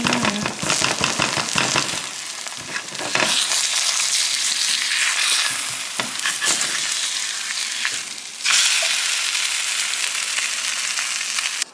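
An egg frying in bacon grease in a nonstick skillet: a steady loud sizzle, with a spatula scraping and pushing it through the first few seconds. The sizzle jumps louder about two-thirds of the way through as the egg is flipped.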